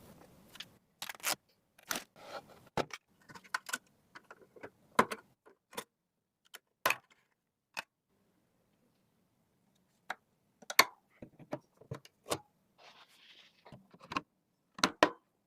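Irregular sharp clicks and taps of computer hardware being handled and fitted together during a PC build, with a short rustle about thirteen seconds in.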